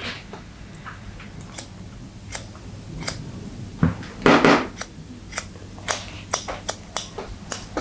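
Barber's scissors snipping through wet hair, about ten short, sharp snips, irregular and quicker in the second half, as the ends are slide-cut and point-cut against a comb to texturise them. A louder, brief rustle of hair and tools about four seconds in.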